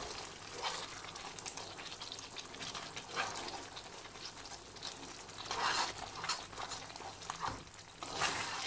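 Thickened caramel sauce bubbling in a nonstick frying pan as a metal spoon stirs it, the spoon scraping against the pan in strokes every couple of seconds.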